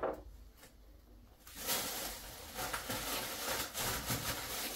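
Scuffing and rustling handling noise, starting about a second and a half in and lasting about three seconds.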